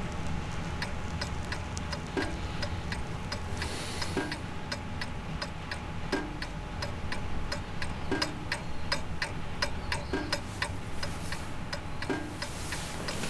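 Mechanical wind-up alarm clock ticking steadily in quick, even clicks. A soft low thump comes about every two seconds, over a steady low rumble.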